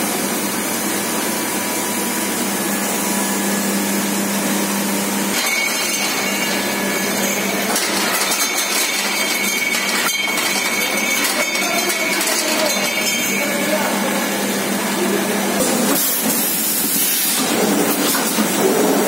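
PET bottle blow moulding machine running: a steady mechanical din with rapid clicking and clatter through the middle, and sharp hisses of released air near the end.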